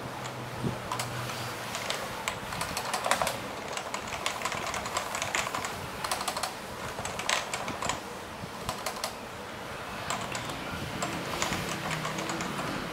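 Typing on a Topre-switch keyboard: a steady, irregular run of soft keystroke clicks with occasional louder strokes.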